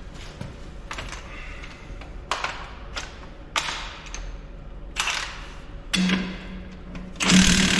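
A few short sharp noise bursts, then a power impact wrench on the tractor's front wheel hub: a short run about six seconds in, then a louder continuous hammering run near the end.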